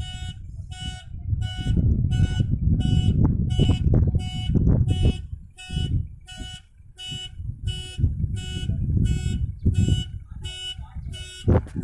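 A backhoe loader's reversing alarm beeps steadily, about one and a half beeps a second, over the machine's diesel engine rumble.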